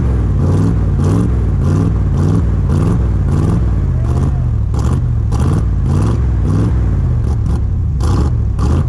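Exhaust of a Chevrolet 305 small-block V8, heard close at the tailpipe, running just after start-up while oil is sucked into its intake through a hose. It runs unevenly, its note wavering with a regular pulse about twice a second.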